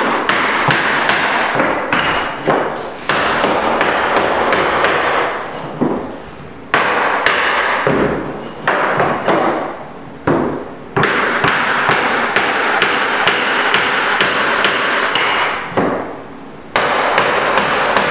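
A hammer tapping a wooden block against oak tongue-and-groove floorboards to drive the strips tight together: quick runs of sharp knocks, several a second, broken by short pauses.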